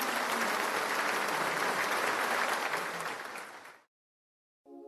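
Audience applause, steady and then fading out a little before four seconds in, followed by a moment of silence. A pitched music track begins faintly right at the end.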